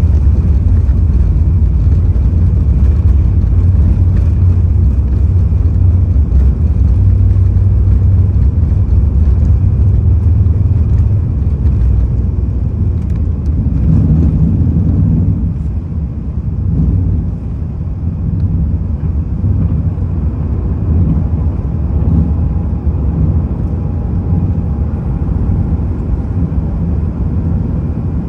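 Cabin sound of an Emirates Airbus A380's takeoff roll, heard from a window seat over the wing and main landing gear: the jet engines at takeoff power and a heavy, steady runway rumble from the wheels. About halfway through, the rumble eases as the aircraft lifts off. Near the end, the wheels are heard spinning as the landing gear retracts.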